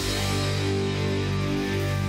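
Background music, rock-style, holding a sustained chord without a clear beat.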